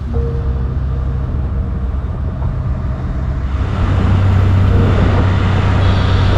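Steady low engine drone of a boat. About three and a half seconds in it switches to a louder, deeper hum.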